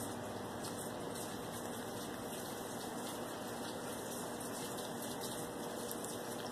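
Domestic cat purring close to the microphone, a steady continuous rumble.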